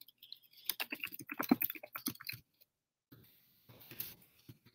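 Typing on a computer keyboard: a quick run of key clicks lasting about a second and a half, then a few more clicks near the end.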